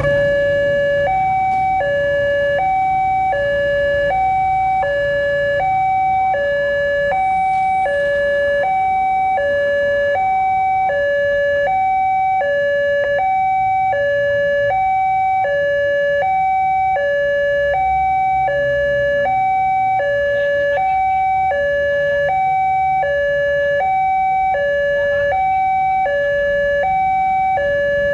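Railway level-crossing warning alarm sounding its electronic two-tone "ding-dong", a low and a high tone alternating evenly about twice a second without a break. It starts suddenly, the warning that a train is approaching and the barriers are closing.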